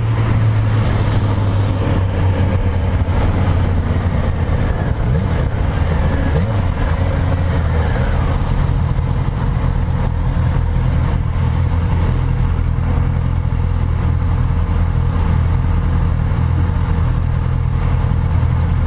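Motorcycle engine running at steady revs while riding, a constant low engine note with road noise.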